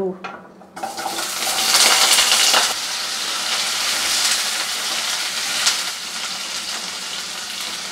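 Cut potato chunks dropped into hot refined oil in a kadai set off a sudden loud sizzle about a second in. It is strongest for the next couple of seconds, then settles to a steady frying sizzle as a metal spatula stirs them, with a click of the spatula on the pan near the end.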